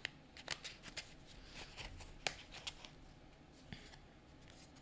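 Tarot cards being shuffled and handled: a scatter of faint, sharp clicks and flicks of cards against each other.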